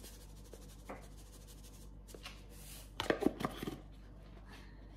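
Cornmeal poured from a cardboard canister into a plastic tray, a soft hiss, then a quick cluster of taps and knocks about three seconds in as the canister is handled.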